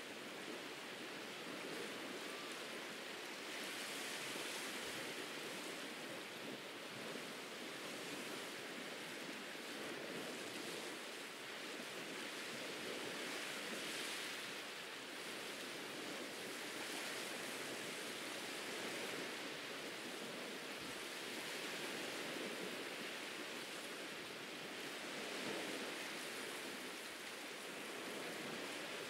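Ocean surf washing onto a tropical beach: a steady hiss of breaking waves that swells and eases every few seconds.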